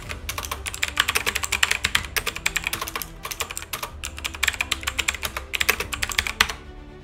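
Computer keyboard typing: rapid runs of keystrokes as a shell command is entered, stopping shortly before the end.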